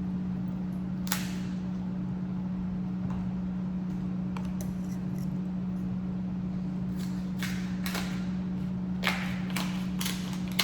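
Sharp clicks and cracks of king crab shell being handled and eaten, one about a second in and a quick run of them in the last few seconds, over a steady low hum.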